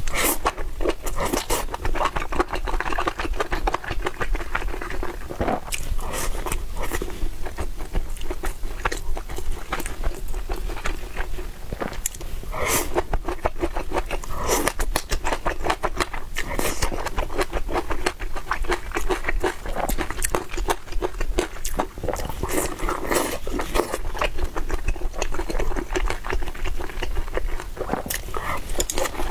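Close-miked mouth sounds of eating: chewing and biting with many short wet clicks and crunches, and the odd scrape.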